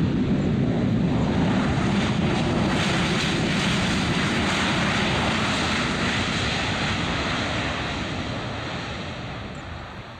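Jet engines of a Ryanair Boeing 737-800 rolling down the runway after touchdown, a steady loud rumble and hiss that fades over the last few seconds as the airliner moves away.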